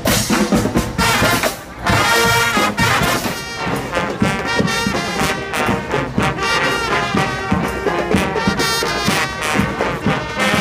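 Street brass band playing live, with trumpets and trombones sounding together in full harmony.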